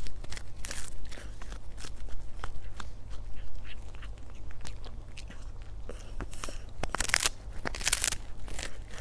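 A cat gnawing and crunching on a dried fish: irregular crunchy bites and small clicks, with a few louder crunches about a second in and again near the end.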